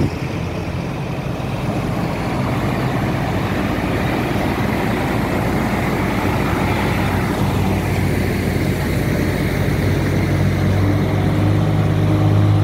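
Heavy vehicle engines running steadily over a rumbling noise, with a low engine hum that grows louder near the end.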